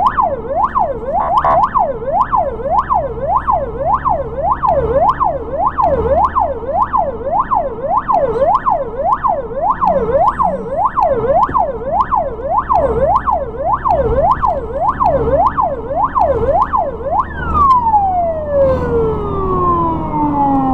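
Ambulance siren sounding from the vehicle's own roof, heard from inside the cab: a fast up-and-down wail at about three sweeps every two seconds, over the engine's hum. Near the end it is switched off and winds down in one long falling tone.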